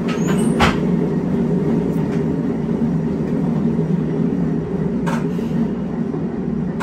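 Diesel railcar's underfloor engine running steadily, heard from inside the car by the driver's cab, with a sharp click about half a second in and a fainter one near five seconds.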